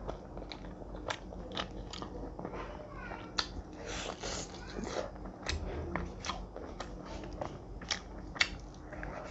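Close-miked eating sounds: a person chewing mouthfuls of curried rice and meat, with wet chewing and many short, sharp lip smacks and clicks throughout.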